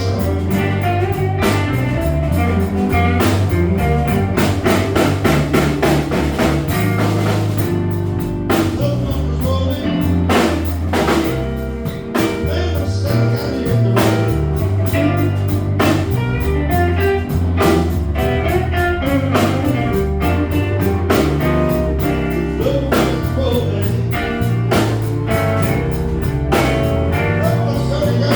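Live electric blues band playing a slow blues: lead electric guitar over bass guitar and drum kit.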